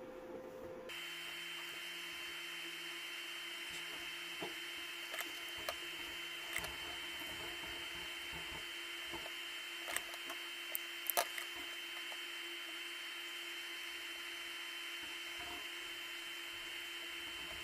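A faint steady electrical whine, one low and one high tone held unchanged, with scattered light clicks and taps of small-parts work on a bench as wires are connected to a lithium battery pack.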